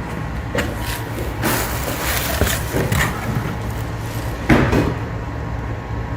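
Mercedes-Benz C300 engine idling with a steady low hum. Several irregular short scrapes and knocks sound over it, the loudest about four and a half seconds in.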